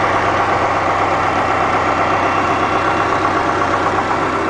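1995 Subaru Impreza's flat-four boxer engine idling steadily, heard from over the open engine bay; nice and quiet, the even idle of an engine that runs good.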